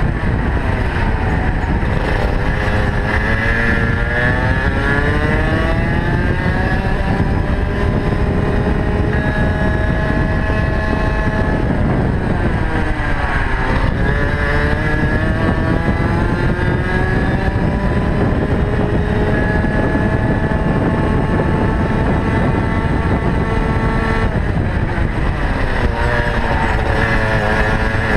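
Rotax Max 125 cc single-cylinder two-stroke kart engine at racing speed, heard onboard. Its pitch climbs as it pulls, then drops sharply about twelve seconds in and again near the end as the kart slows for corners, before climbing back under acceleration.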